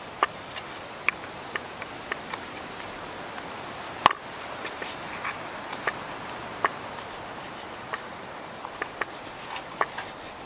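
Knife slicing cooked steak on a cutting board: irregular sharp taps of the blade on the board, with one louder knock about four seconds in, over a steady background hiss.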